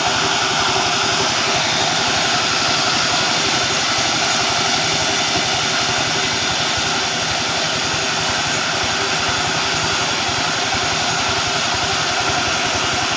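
Engine of a mobile sawmill running steadily at a constant speed.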